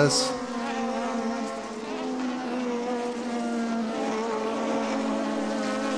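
1987 Formula One cars at high revs passing one after another through a corner. Their engine notes overlap as a steady, high, multi-toned sound that shifts a little in pitch as each car goes by.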